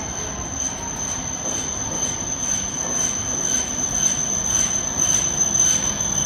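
E7 series Shinkansen train running slowly into a station platform, its running noise growing louder as it draws near, with a steady high-pitched whine throughout.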